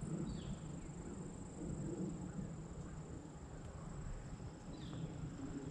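Footsteps of a person walking on a dry grass and dirt trail, an uneven crunching that swells with each step.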